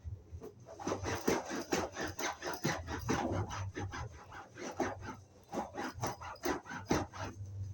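Damp, soapy sponge being rubbed over a sofa seat in quick back-and-forth strokes, about three a second.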